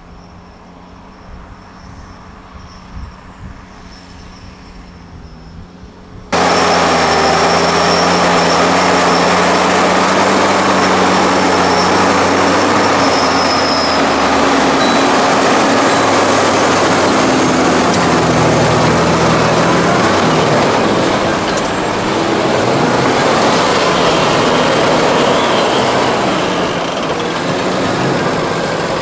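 Fendt tractors' diesel engines working hard under the load of a deep plough. The engines sound faint and distant at first. About six seconds in the sound cuts abruptly to loud and close, with a steady engine drone.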